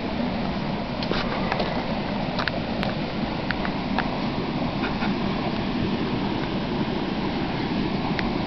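Small backyard waterfall pouring steadily into a pond: a constant rushing splash with short drips and plops here and there.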